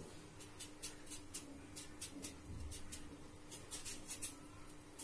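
Kitchen knife slicing an onion held in the hand, with no board: short, sharp cutting clicks, a few a second in irregular runs. A faint steady hum lies underneath.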